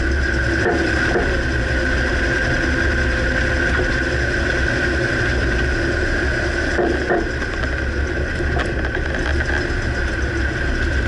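2009 Dodge Ram pickup running with a steady low rumble and a steady high tone, and a few faint knocks about a second in and again about two-thirds through: typical of the front right suspension clunk whose cause the owner can't pinpoint.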